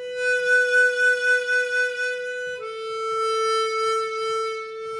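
An Easttop EAP Performer 16-hole chromatic harmonica, airtightened and with its stock covers, plays two long held notes. The second note is slightly lower and comes in a little past halfway. The first note has a breath vibrato pulsing about four times a second.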